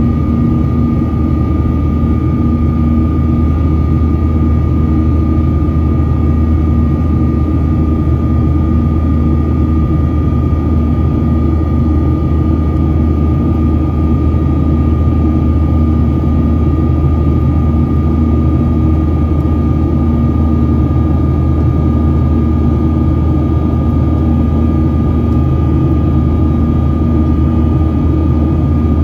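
Cabin noise of a Boeing 737-800 climbing out, heard over the wing: the steady, loud roar of its CFM56-7B jet engines and the airflow, with a steady high whine running through it.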